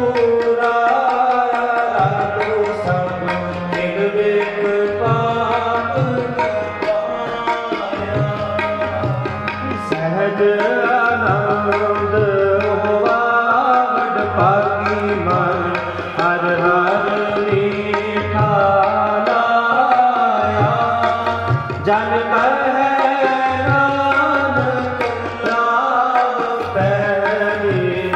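Tabla playing a steady rhythmic pattern under a sustained melodic line: Indian-style instrumental music.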